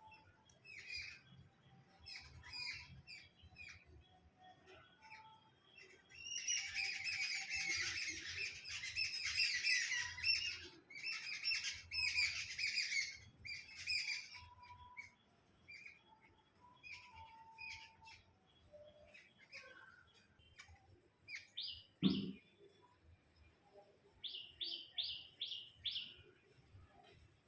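Small birds chirping and chattering noisily, with bursts of dense chatter in the first half and a quick run of five chirps near the end. A single short thump, the loudest sound, comes about three-quarters of the way through.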